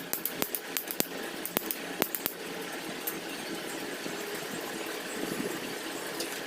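About a dozen sharp clicks and taps in the first two seconds, over a steady low mechanical hum.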